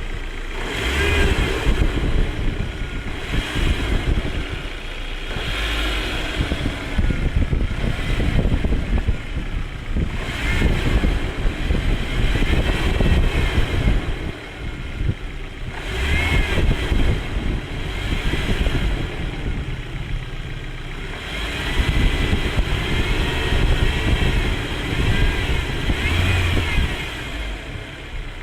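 A 1.8T turbocharged four-cylinder engine running and swelling in revs every few seconds. Over it is a thin whine that rises and falls with the revs. The owner counts the noise as strange.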